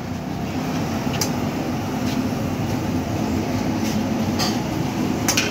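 Steady low rumble at a street jalebi-frying station, where a pan of hot oil sits over a burner, with a few light metallic clicks as tongs work the frying jalebis.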